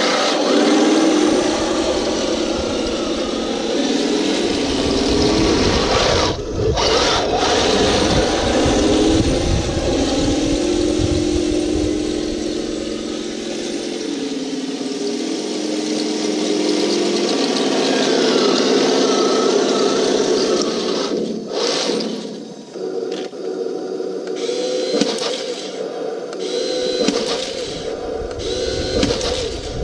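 RC Walker Bulldog light tank model driving on grass. Its electric drive motors and gearboxes whir, and a simulated engine note steps up and down in pitch as the throttle changes.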